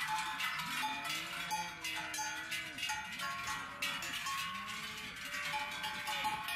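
Many large cowbells on the necks of grazing cows, clanging and ringing unevenly and overlapping without a break.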